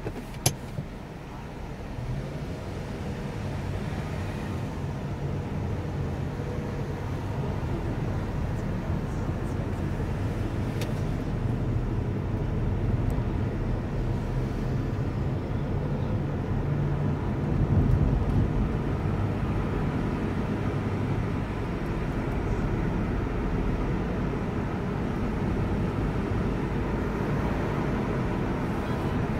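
A car being driven: steady engine and road rumble that grows louder over the first several seconds and swells briefly about two-thirds of the way through, with one sharp click just under a second in.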